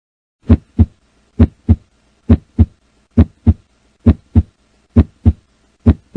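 Heart sounds, a regular lub-dub: seven pairs of short thumps, the first and second heart sounds of the valves closing, one pair about every 0.9 s, roughly 67 beats a minute.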